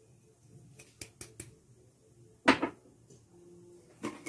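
Kitchen clatter of a glass against a clear plastic mixing bowl as a glass of sugar is tipped onto eggs: a few faint ticks, then one loud knock about halfway through and another near the end.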